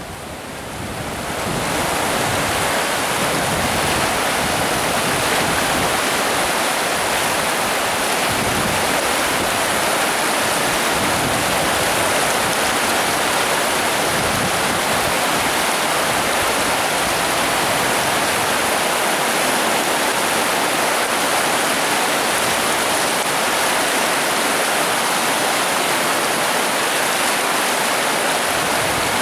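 River rapids rushing, a steady churning of whitewater that fades in over the first two seconds and then holds level.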